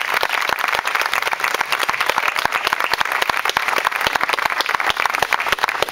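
Audience applauding with dense, steady hand clapping.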